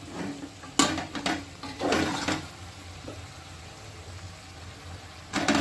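Metal utensil clinking and scraping in a pot of chicken curry: a sharp knock about a second in, a few short scrapes, a quieter stretch, then more clatter near the end, over a steady low hum.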